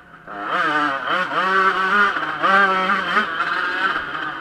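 Yamaha YZ125 two-stroke motocross engine, heard on board, coming back on the throttle about a quarter second in after a lull, then revving hard with its pitch rising and falling several times.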